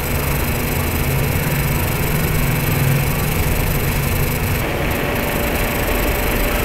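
Steady background hum and hiss, even in level throughout, with no separate clicks or knocks standing out.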